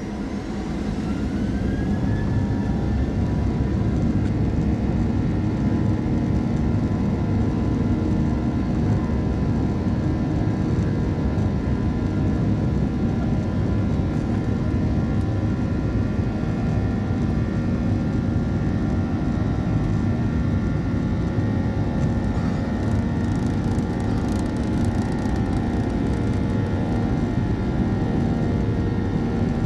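Boeing 737-800's CFM56-7B turbofan engines spooling up to takeoff thrust, heard from inside the cabin. A whine rises and the sound swells over the first couple of seconds, then settles into a loud, steady roar with a buzzsaw drone of many tones through the takeoff roll.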